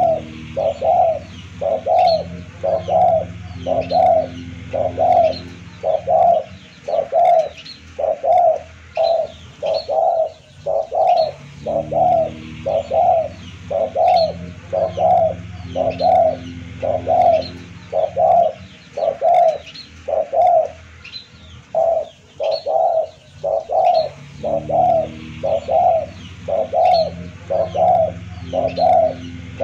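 Spotted dove (tekukur) cooing over and over, about two coos a second in long runs broken by two short pauses. Faint high chirps of small birds sound behind it.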